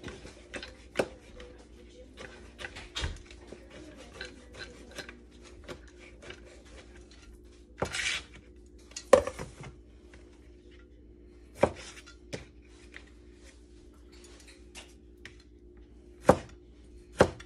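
Kitchen knife finely dicing Roma tomatoes on a plastic cutting board: irregular light knocks of the blade on the board, with a few louder knocks now and then. A faint steady hum runs underneath.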